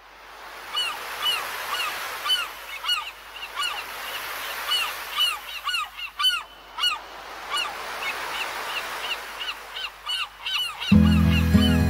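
Seagulls crying over and over, short arched calls over a steady background hiss. Music starts near the end.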